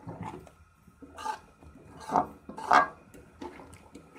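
Metal spoon stirring thick saag and chicken in a metal pot: a few separate scraping strokes, three louder ones between about one and three seconds in.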